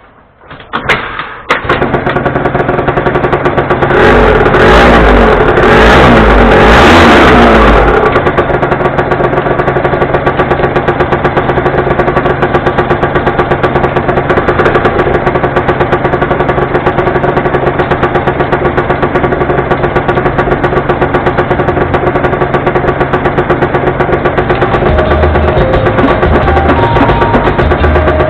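Yamaha Grand Axis 100 scooter's two-stroke single-cylinder engine started after a few brief cranking knocks, revved up for a few seconds, then settling into a steady idle, running smoothly on its freshly cleaned carburettor.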